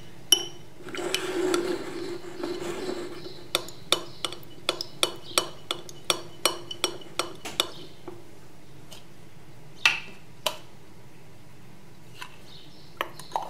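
Metal spoon stirring soft beeswax-and-oil salve in a glass jar: a couple of seconds of scraping, then a run of quick clinks of the spoon against the glass, about three a second, and two more clinks around ten seconds in.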